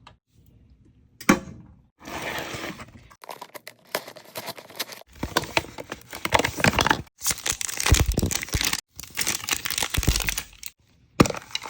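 Plastic wrapping on Mini Brands miniature food items crinkling and tearing as they are unwrapped by hand, a busy run of crackles with a sharp snap about a second in.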